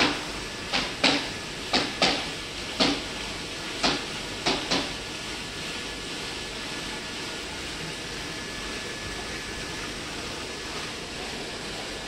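Steady rushing of water running through a rotary drum filter under test. Over the first five seconds it is overlaid by about nine sharp knocks at uneven intervals.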